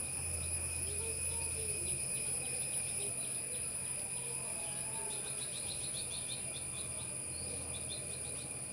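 Steady, high-pitched insect trilling throughout, with small birds chirping in quick runs of short notes, busiest about two-thirds of the way in.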